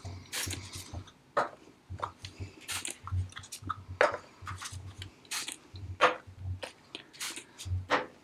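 Small plastic lotion-stick tubes and caps being picked up and set down on a wooden tabletop: irregular light clicks and taps of plastic on wood, some with a soft thump.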